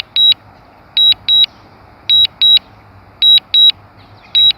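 DJI Mavic Mini remote controller beeping in high-pitched double beeps, a pair about once a second: the alert it sounds while the drone is on Return-to-Home.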